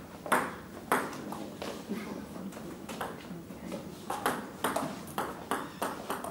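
Table tennis ball clicking off paddles and the table: a few scattered clicks, then from about four seconds in a rally, with sharp clicks about three times a second.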